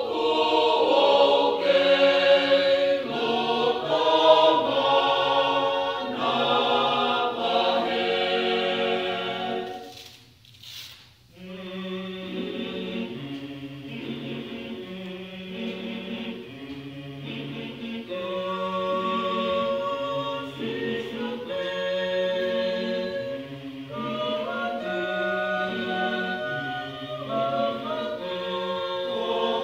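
Mixed choir of men and women singing a Tongan gospel hymn a cappella. They sing loudly at first, pause briefly about ten seconds in, then go on more softly in held chords.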